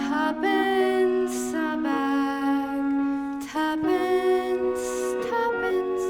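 Pit orchestra playing a slow, gentle instrumental passage of held notes that change pitch every second or so.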